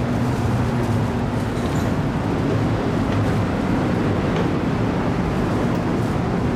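Steady low hum and rumble of a car ferry's engines and machinery, heard from inside the ship while it is still under way during berthing.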